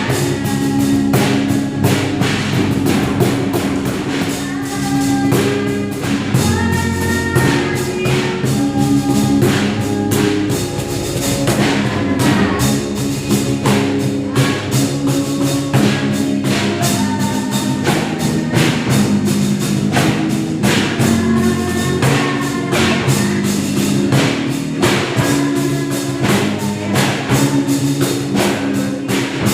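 A band playing an Indonesian worship song, held chords and melody over a steady drum beat.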